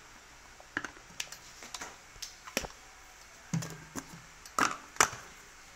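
Plastic clicks and knocks as a clear lid and a top piece are fitted onto a small blender jar: a string of irregular taps, loudest about four and a half and five seconds in.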